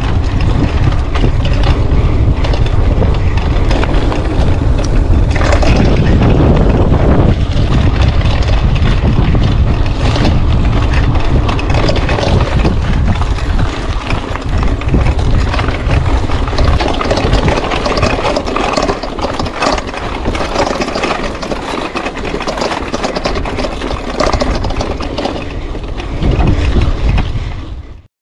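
Mountain bike rolling fast down a gravel track, with wind buffeting the handlebar camera's microphone as a heavy rumble under the crunch of tyres on gravel and constant rattling of the bike over bumps. The noise eases a little in the second half and cuts off suddenly at the end.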